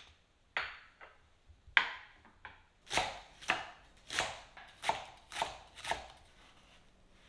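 Chef's knife shredding cabbage on a wooden cutting board: six slicing strokes, about two a second. A few knocks come first.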